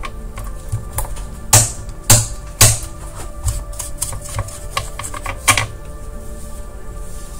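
Plastic Xbox console parts clicking and knocking as they are fitted together by hand, with several sharp knocks at uneven intervals, the loudest around two seconds in and again near five and a half seconds.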